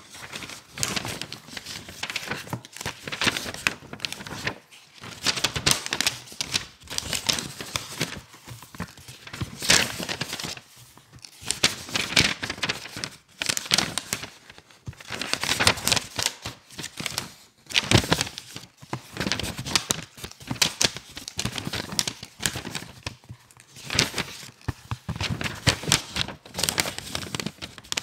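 Thin pages of a thick book being turned and flipped by hand, one after another: a fast, continuous run of paper rustles and swishes.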